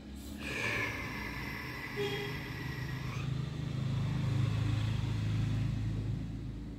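A motor vehicle passing in the street: a low engine rumble swells and fades over a few seconds, with a steady high-pitched tone during the first three seconds.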